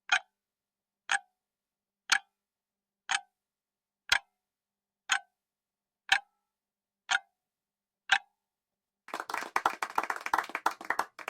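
Countdown-timer ticking-clock sound effect: a single sharp tick every second, nine in a row, then a dense fast rattle of clicks for about the last two seconds as the countdown runs out.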